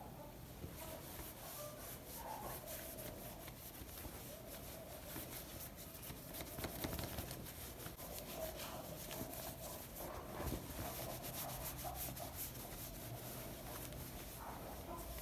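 Cloth rubbing over a wet smartphone as it is wiped dry: a faint, continuous scratchy rustle made of many small scrapes.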